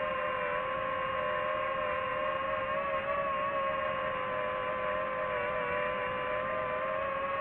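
DJI FPV drone's motors and propellers whining steadily, the pitch wavering slightly.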